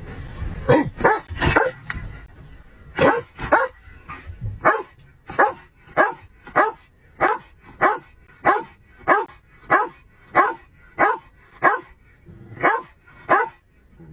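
A dog barking over and over: a few irregular barks at first, then a long, steady run of single barks at about one every half second or so.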